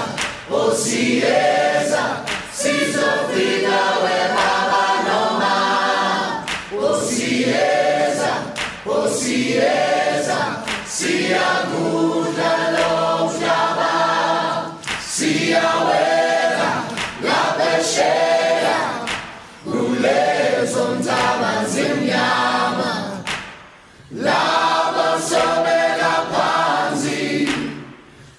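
A choir singing, mostly or wholly unaccompanied, in phrases separated by brief pauses; the longest pause falls about four seconds before the end.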